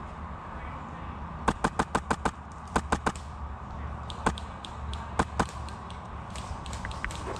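Airsoft gunfire: a quick string of about six sharp cracks about a second and a half in, three more just after, then a few scattered single shots, over a steady low rumble.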